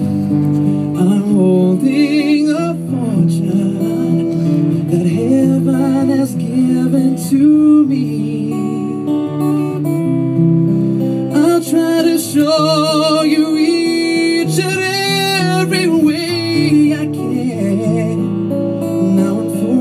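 A man singing a ballad live while strumming an acoustic guitar, holding long notes with vibrato in the middle.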